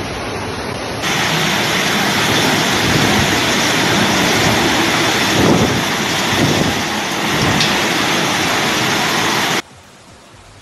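Heavy wind-driven rain pouring down in a storm, a loud, steady rushing hiss. It starts quieter, grows suddenly louder about a second in, and cuts off abruptly near the end.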